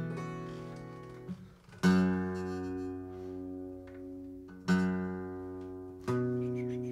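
Acoustic guitar strummed one chord at a time, about four times, each chord left to ring and fade: a player checking tuning between songs.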